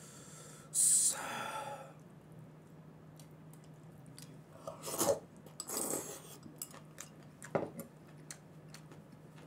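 Close-up eating sounds of instant black-bean noodles: a loud slurp about a second in, then more short slurps and breaths in the middle, with light clicks of chopsticks against the bowl.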